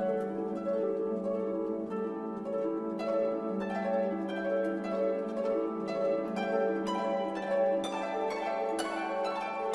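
Background music: plucked-string notes in a steady flowing run, several a second, over a held low note.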